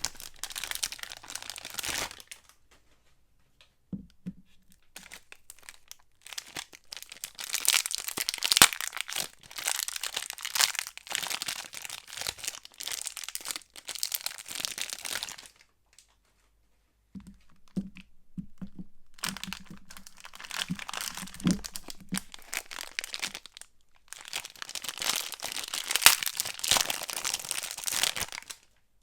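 Soap wrappers crinkling and rustling as soap bars are unpacked by hand. The sound comes in several stretches a few seconds long, with short quiet gaps between them.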